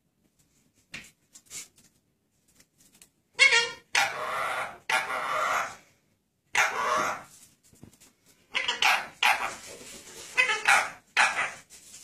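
Blue Indian ringneck parakeet giving a series of loud, harsh squawks, about eight calls of up to a second each, starting a few seconds in.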